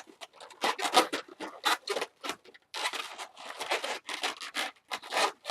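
Latex modelling balloon being handled and twisted by hand: a run of short, irregular rubbing and scratching sounds.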